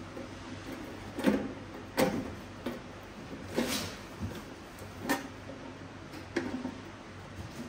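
Irregular metal clicks and knocks, roughly one a second, with a short scrape a few seconds in. A stainless-steel cover plate is being seated on the machine and its fastening screw turned in with a screwdriver.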